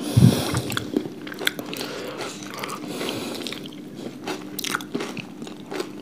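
Close-up crunching and chewing of crisp fried chaat food, with many small sharp crackles through the whole stretch.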